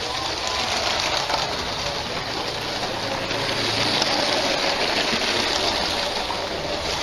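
Lego City High-Speed Passenger Train running past on plastic track: a steady rushing whir from its electric train motor and wheels.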